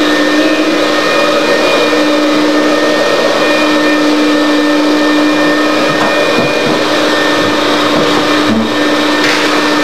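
Steady, loud whir of an electric motor or fan, with a constant low hum and no change in pitch.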